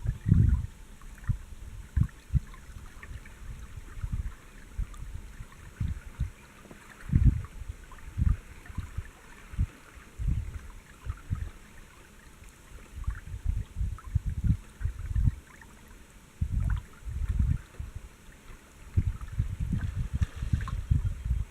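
Water sloshing and slapping against a small boat's hull, heard as irregular low thumps with a faint gurgle.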